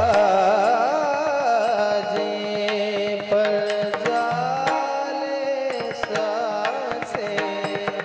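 Devotional kirtan music: a high sung melody with wide vibrato that settles into long held notes over a steady drone, accompanied by mridang barrel-drum strokes and sharp percussion strikes.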